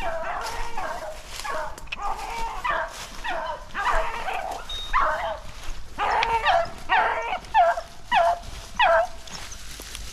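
Beagles baying on a rabbit's trail: a run of yelping hound calls, each dropping in pitch, coming about two a second later on and stopping about a second before the end.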